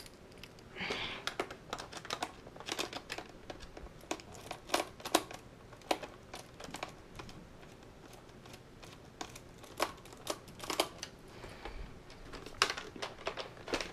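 Irregular small clicks and ticks of a screwdriver driving the screw of a Nerf Rival Zeus blaster's plastic battery cover, along with light handling of the plastic blaster, with a brief scrape about a second in.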